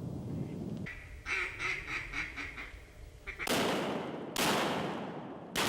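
A quick run of duck quacks, about five a second, then three shotgun blasts about a second apart, each ringing out. The blasts are the loudest sounds.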